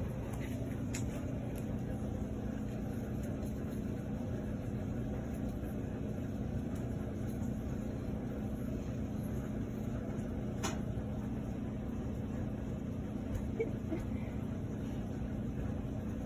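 Steady low mechanical hum of a running machine, with a faint click about a second in and another about two-thirds of the way through.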